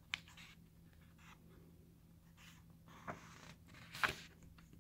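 A book page being turned by hand: soft paper rustles, with the loudest swish about four seconds in.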